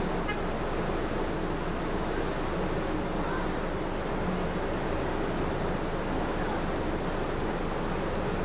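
Steady rushing of water churned up around a cargo ship's hull in a canal lock, with a low rumble underneath.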